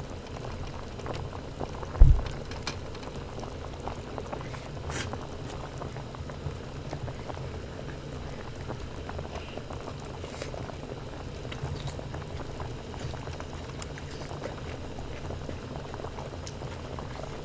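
Hot-pot broth bubbling steadily at the boil. There is one low thump about two seconds in and a few faint clicks.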